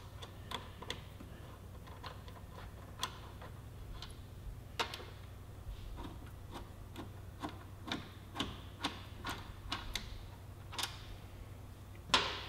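Faint, irregular metallic clicks and ticks of a Torx bit and bolts being worked by hand as a motorcycle's front brake caliper mounting bolts are unscrewed, with a sharper click near the end.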